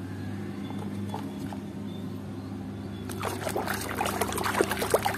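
Hands sloshing and splashing a toy in a tub of water, the splashing growing busier about three seconds in, over a steady low hum.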